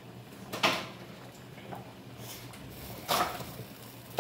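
Kitchen clatter: a few short knocks and scrapes of cookware or cupboard being handled, spaced about a second apart.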